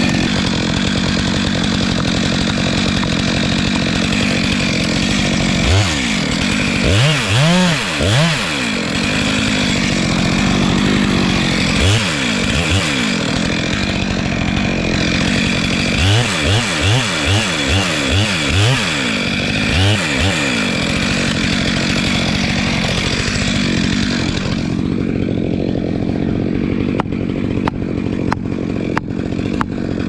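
Stihl MS 462 two-stroke chainsaw running at high revs while cutting through a tree trunk. The engine note swoops up and down in several quick runs. About 24 seconds in the saw drops back to a lower, quieter running, and a string of sharp knocks follows near the end.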